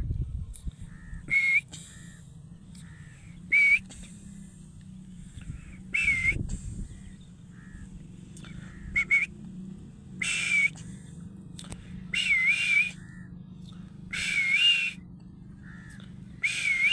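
Pet parrot whistling repeatedly: about eight short, wavering whistles a second or two apart, some of them longer near the end.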